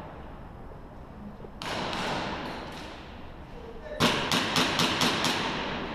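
A quick run of six sharp knocks, about four a second, starting about four seconds in and echoing in a large concrete hall, after a stretch of indistinct noise.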